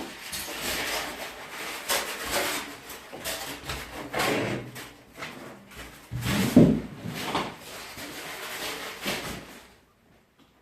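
Handling noises from unpacking a large boxed machine: irregular scraping, rubbing and sliding with several knocks, dying away near the end.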